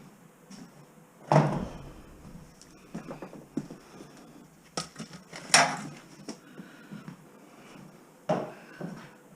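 Scattered knocks and clatters of objects being handled in an empty room. The loudest come about a second in and just past halfway, with another bang near the end.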